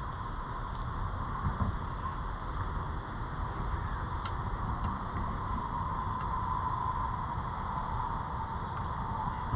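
Steady outdoor background rumble with a faint, even hum above it and a couple of faint ticks about halfway through.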